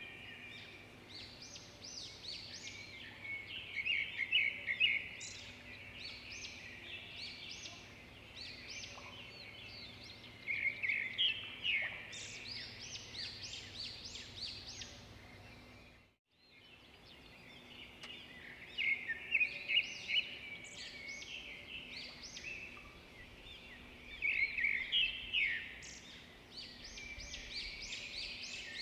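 Small songbirds chirping and trilling in quick high runs, with louder bouts every few seconds. The sound cuts out briefly a little past halfway.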